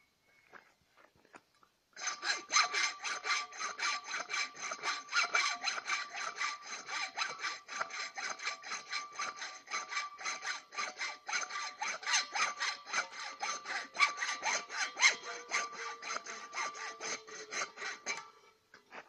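Hand hacksaw cutting through the brass valve of a gas cylinder in fast, even back-and-forth strokes, about four a second, over a steady ringing tone. It starts about two seconds in and stops briefly near the end.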